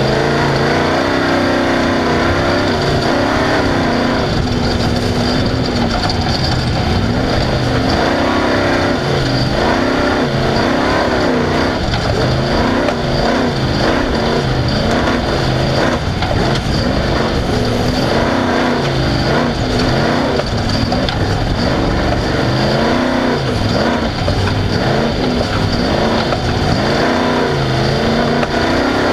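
Off-road race vehicle's engine running hard and revving up and down over and over, its pitch rising and falling every second or two as the throttle is worked, over a constant loud din.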